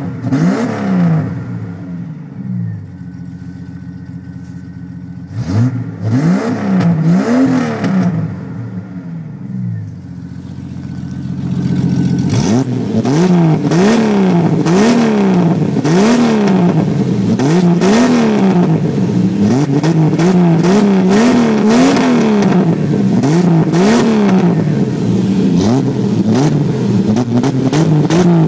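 1994 Jeep Grand Cherokee's straight-six engine, breathing through a Red Hot glass-pack exhaust with no catalytic converter and a cold air intake, blipped a few times with steady idling in between. From about halfway it is revved up and down continuously, roughly once a second.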